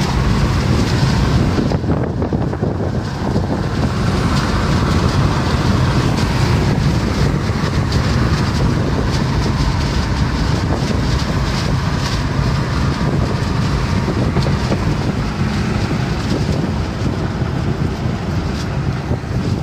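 Steady road noise heard inside a car's cabin at highway speed: tyres, engine and wind blending into an even rumble.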